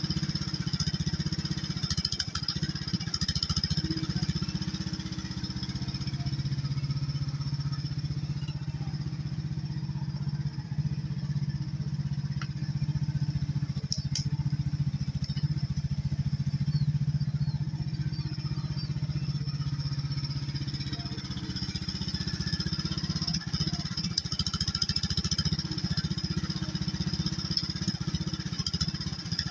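Chinese HighTop mini excavator's small engine running steadily as the arm and bucket dig. Its low drone grows stronger for a stretch in the middle, then eases back.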